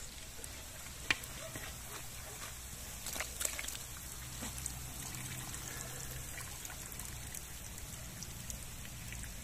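Hot rendered pork fat trickling and dripping from a perforated skimmer full of cracklings back into a cast-iron cauldron. A sharp click about a second in and a few more clicks around three seconds in, as the skimmer scoops and lifts.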